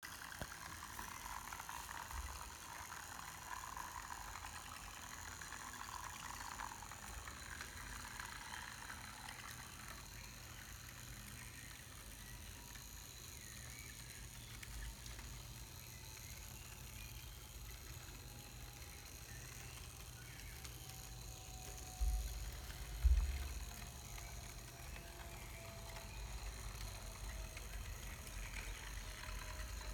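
The small electric motor of a Viessmann model Robel track-maintenance vehicle runs slowly along model railway track with a faint whine, its pitch gradually falling. Two low thumps come about 22 seconds in.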